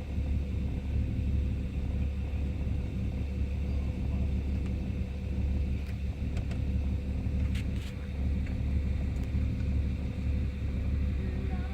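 Ford EL Falcon XR6's 4.0-litre straight-six idling roughly, a steady low rumble with a slightly uneven level. The rough idle is what the owner links to an oil pressure problem.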